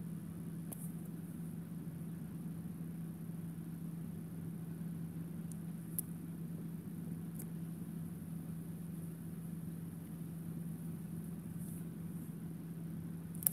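Steady low room hum with an even drone, with a few faint ticks.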